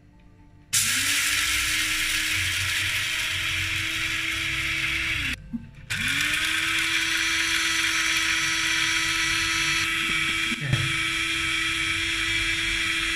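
Small electric blade grinder grinding flax seeds: the motor spins up with a rising whine and runs steadily, stops for under a second midway, then spins up again and runs on before cutting off suddenly.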